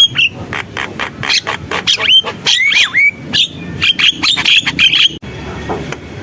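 Javan myna (jalak kebo) singing: a fast string of harsh clicking and chattering notes mixed with short rising whistles, broken by a sudden cut about five seconds in.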